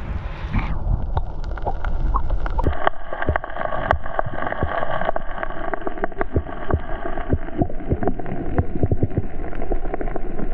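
Sea water surging and sloshing over rocks in a strong current, with many short sharp clicks and splashes and wind buffeting the microphone. The sound turns duller less than a second in.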